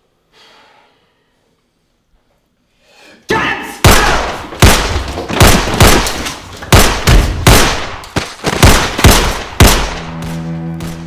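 Gunfire in a standoff: after near quiet, a rapid string of a dozen or so loud pistol and revolver shots begins about three and a half seconds in. Near the end a low, steady bowed-string music note comes in.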